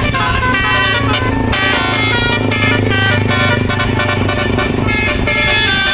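Bus telolet basuri horn, a multi-note musical air horn, playing a quick stepping melody, with a low steady drone underneath through most of it.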